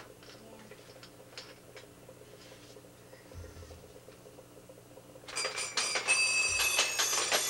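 Children's toy ringing loudly with a bell-like, rapidly struck ring, with quick clicks through it, for about three seconds starting about five seconds in, after a few faint clicks.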